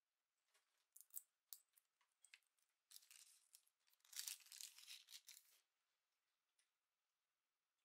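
Clear plastic bag of charm straps crinkling and rustling as it is handled, with a few light clicks of small parts before it; the crinkling is loudest from about four to five and a half seconds in.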